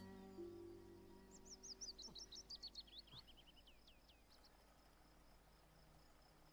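A songbird sings a fast run of high, downslurred notes that fall in pitch over about three seconds and end in a few separate notes, over the faint steady pulsing of crickets. The held notes of a music score fade out during the first two seconds.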